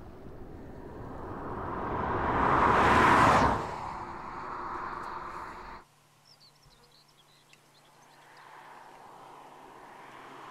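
BMW 2 Series Convertible driving past at speed, its engine and tyre noise swelling to a loud peak about three seconds in and dropping away quickly as it passes. After a sudden cut to a quiet outdoor background, the same car is heard faintly approaching again, growing louder near the end.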